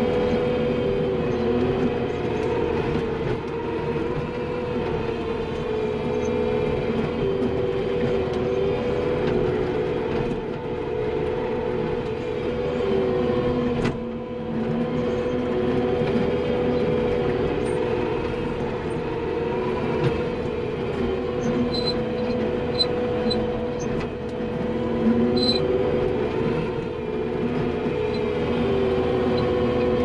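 Skid steer engine and hydraulics running while driving a power rake attachment over dirt, heard from inside the cab: a steady hum with a whine that wavers up and down. A few light ticks come in the later part.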